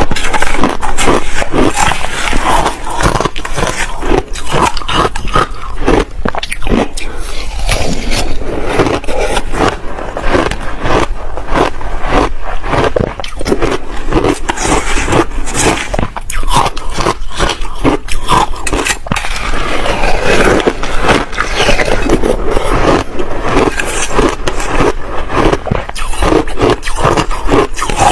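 Close-miked crunching of crushed ice with passion fruit being bitten and chewed, in rapid crackling bites, mixed with a metal spoon scraping and scooping in the bowl.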